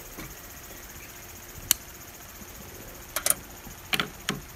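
Sharp clicks as a Dietz hurricane lantern's wick is lit with a long-neck lighter. One loud click comes about two seconds in, then a few lighter clicks and metal clinks near the end. A steady high insect chorus runs underneath.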